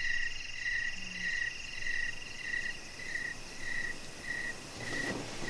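Crickets chirping: a regular chirp repeating about every two-thirds of a second, over a steady higher trill that stops about halfway through.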